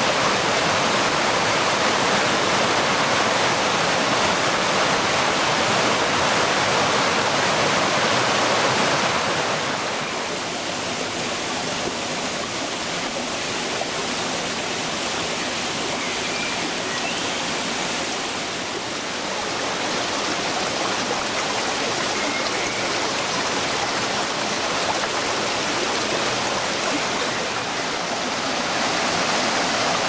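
Mountain stream rushing over rocks and a small cascade, a steady noise of running water. It eases a little about ten seconds in and swells again near the end.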